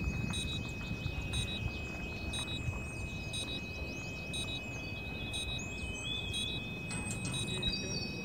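Outdoor ambience of birds chirping over a low wind rumble, with a steady high-pitched tone and a short electronic beep repeating about once a second.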